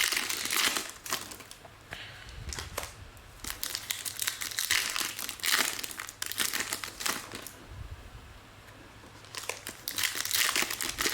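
Crinkling plastic as trading cards are handled and slid into soft plastic sleeves: clusters of quick, sharp rustles, with a short lull about three-quarters of the way through.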